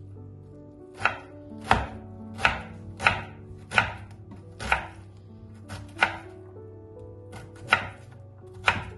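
Kitchen knife chopping an onion on a bamboo cutting board: about nine sharp knocks of the blade against the wood, unevenly spaced, with a longer pause about two-thirds of the way through.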